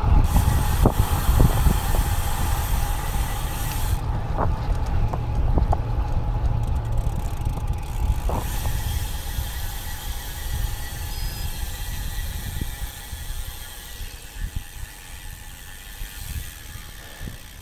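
A 2006 Cervelo Soloist Team road bike rolling and slowing to a stop. The low wind and road rumble on the action camera's microphone fades as speed drops, with a few scattered clicks and knocks.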